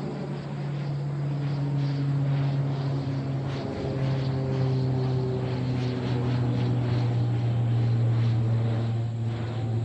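Cessna 208B Caravan's single PT6A turboprop flying overhead: a steady propeller drone that swells as the aircraft approaches. Its pitch drops slightly as it passes over, about four seconds in, and the drone stays loud after.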